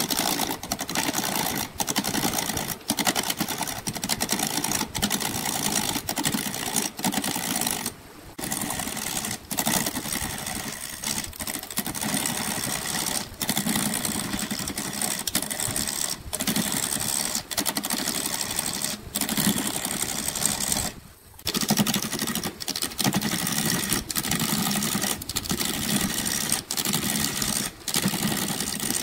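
Wood lathe turning a glued-up stacked-ring wooden blank while a hand-held turning chisel cuts into it: a steady, dense scraping over the machine's running. The cutting drops out briefly twice as the tool comes off the wood.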